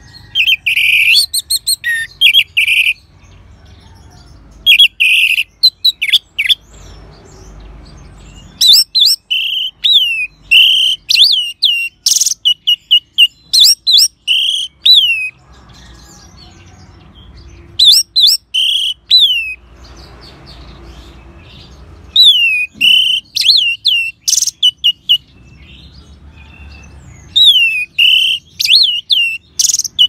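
Orange-headed thrush singing: about six loud phrases of rapid, high whistled notes, many of them sharply falling, each lasting from one to several seconds with short pauses between.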